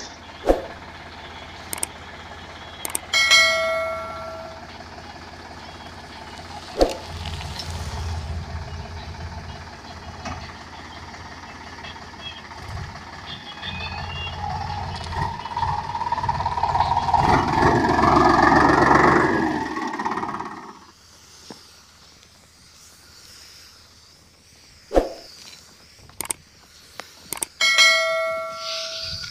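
Sonalika 745 tractor's diesel engine running steadily, growing louder towards the middle and then falling away about two-thirds of the way through. Twice there is a short bell-like ringing tone, a few seconds in and again near the end, with a few sharp clicks between.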